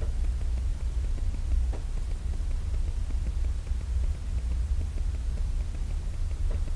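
Deep, continuous low rumbling with no clear pitch, an unexplained rumble the recordist likens to thunder or to a heavy wheeled cart being rolled. A couple of faint clicks sound over it, about two seconds in and near the end.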